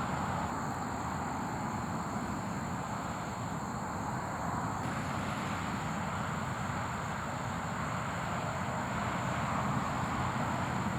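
Steady outdoor background noise: a low, even rumble with a thin steady high tone above it, and no distinct events.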